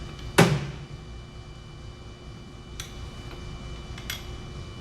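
Capri Tools 1/2-inch drive ratchet on a long cheater-pipe extension under load: one sharp metallic clack with a short ring about half a second in, then a few fainter clicks, roughly a second or more apart.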